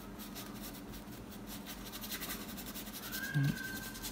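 Paintbrush scrubbing and dabbing thick acrylic paint onto canvas in quick, scratchy strokes that stop about two-thirds of the way through. Near the end come a brief low voice-like sound, the loudest moment, and a faint thin tone held for about a second.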